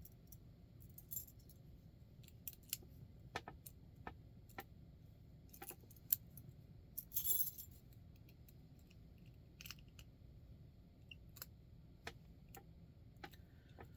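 Flat steel warded keys being tried one after another in an antique warded padlock: scattered small, sharp metal clicks as keys go in and out of the keyway, with a brief jingle of keys about seven seconds in.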